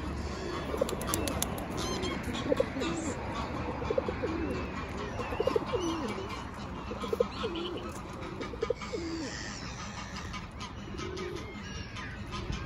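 Pigeons cooing: a run of low, rolling coos repeated again and again, coming thickly for most of the stretch and thinning out near the end.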